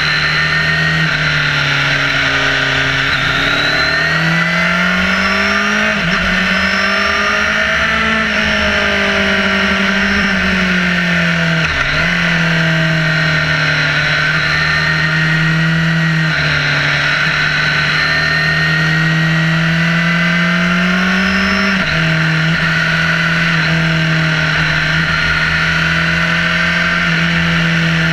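Sport motorcycle engine pulling and easing off through a series of bends, its note rising and falling, with sudden pitch steps at gear changes about 12 and 22 seconds in. A steady rush of wind runs under the engine.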